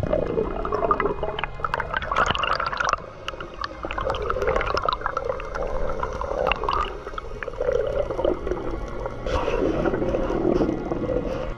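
Underwater camera audio: water gurgling and rushing around the camera housing as the diver swims, with scattered sharp clicks throughout.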